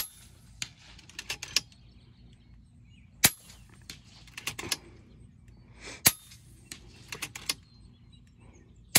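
FX Impact MK2 PCP air rifle fired in quick succession, a sharp crack about every three seconds. Each shot is followed within a second by a short run of small mechanical clicks as the action is cycled for the next pellet.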